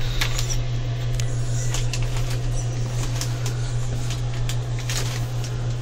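Wire shopping cart rattling, with irregular clicks and light knocks from the basket and its load, over a steady low hum.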